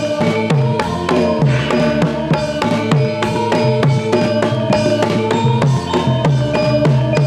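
Javanese gamelan music with no singing. Hand-played kendang drum strokes, each dropping in pitch, sound over steady ringing metallophone tones.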